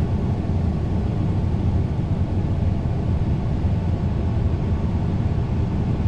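Combine harvester running steadily, a low, even engine and machinery drone.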